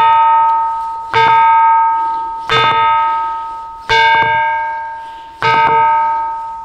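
A bell-sounding rock struck with another stone, about every second and a half, each blow often with a quick second tap. Every strike rings with a clear, metallic, bell-like tone that slowly dies away.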